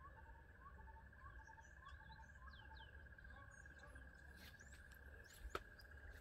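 Faint outdoor ambience: a steady, pulsing high insect trill, with birds calling over it, one bird repeating a short rising chirp about twice a second and others chirping higher up. A single sharp click near the end.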